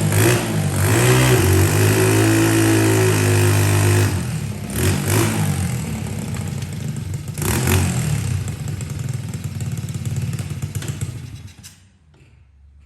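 Lifan 125 single-cylinder four-stroke engine in a Honda SL70 minibike, running and revving up and down. The pitch steps and swings with throttle. The engine sound drops away sharply near the end.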